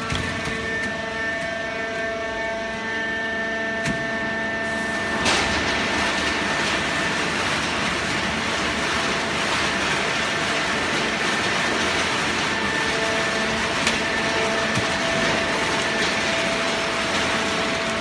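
Automatic horizontal hydraulic baler running, a steady machine hum with several whining tones. About five seconds in, a louder, even rushing noise sets in and continues.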